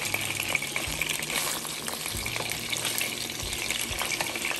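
Mackerel pieces lightly frying in oil in a frying pan: a steady sizzle, with a metal spoon knocking and scraping against the pan a few times as the pieces are moved.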